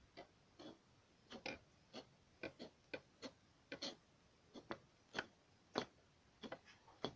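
A run of light, sharp clicks and taps at an uneven pace, about two or three a second, from small hand tools and wire being handled in close-up model work.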